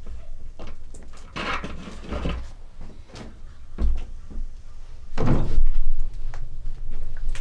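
Scattered knocks, clicks and scraping handling sounds, with a louder rough, noisy stretch about five seconds in.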